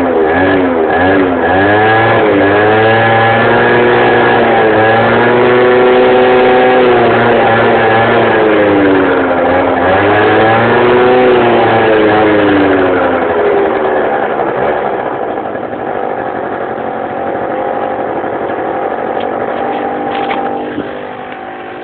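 Scooter engine revving: a few quick blips, then held high revs that dip once and rise again before dropping back to a steady idle.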